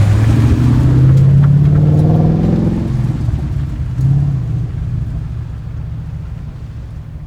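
Car engine revving through a performance exhaust: one long rev climbing in pitch for about three seconds, a short second blip about a second later, then dropping back and fading out.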